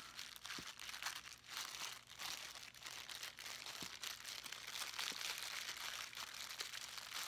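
Thin clear plastic bag crinkling steadily as it is handled and worked off a folding knife.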